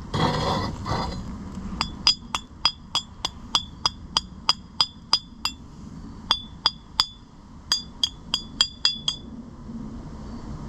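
Hammer striking steel with sharp, ringing metallic blows, about three a second in two runs with a short pause between, after a brief scraping noise at the start. A tight-fitting steel sleeve is being driven into the snowplow's bull-bar tube, where it has stuck.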